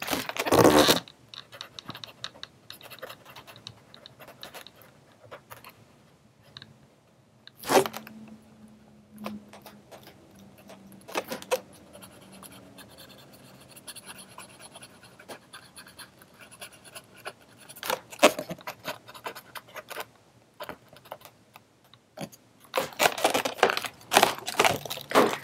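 Latex balloon sculpture being handled and marked with a paint pen: scattered light scraping and rubbing, a few sharp clicks, and denser rubbing in the last couple of seconds.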